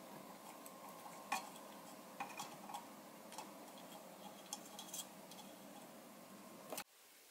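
Soldering a copper pipe into a tin-plate can: a faint steady sizzle from the iron on solder and flux at the joint, with scattered small ticks and crackles. It cuts off suddenly near the end.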